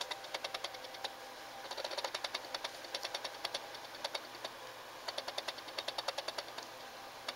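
An animal inside the wall scratching and digging: runs of quick, sharp scratches, about five or six a second, broken by short pauses.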